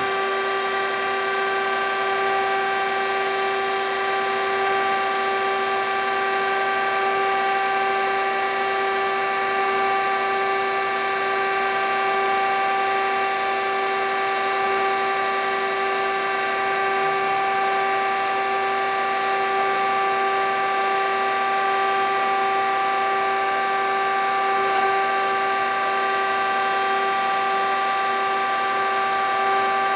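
K.O. Lee 6 x 18 hydraulic surface grinder running with its spindle and hydraulic system on, the table traversing and cross-feeding: a steady hum with several even whining tones that does not change.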